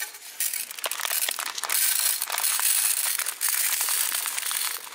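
Dry rice grains poured from a plastic bag into an aluminium mess tin: a dense, hissing patter of grains on metal, with short breaks between pours, mixed with the crinkle of the bag.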